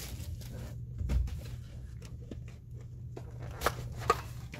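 Cardboard collector booster box being opened by hand, its lid and sleeve sliding apart: a soft thump about a second in, then two sharp cardboard clicks near the end, over a low steady hum.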